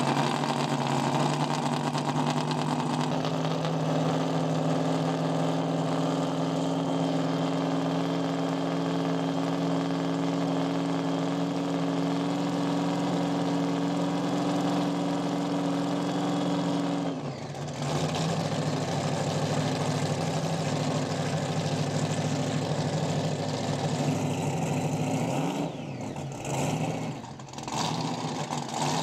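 Offshore racing powerboat's engines running at idle through its deck exhaust stacks, a steady multi-toned drone. The sound dips briefly and shifts in pitch about two-thirds of the way through, and dips twice more near the end as the revs change.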